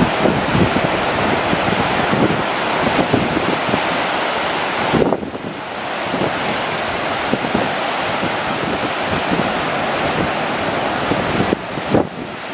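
Ocean surf breaking and washing in foam over shoreline rocks, a steady rushing noise, with wind buffeting the microphone.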